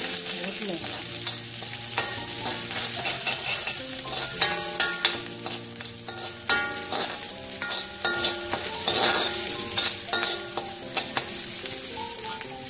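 Chopped onions sizzling in hot mustard oil in a black iron kadai while being browned. A metal spoon stirs them, scraping and clicking against the pan again and again.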